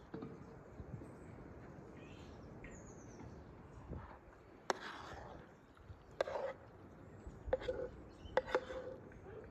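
A metal spoon scrapes creamy chicken and mushrooms out of a frying pan onto a ceramic plate, with several sharp clinks of spoon against pan in the second half. Faint birdsong chirps in the background early on.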